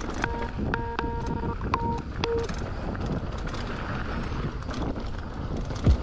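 A mountain bike rolling over a dirt jump trail: steady wind rush on the chest-mounted camera's microphone and tyre noise on the dirt. A backing tune of short, steady electronic tones plays over the first couple of seconds, then stops.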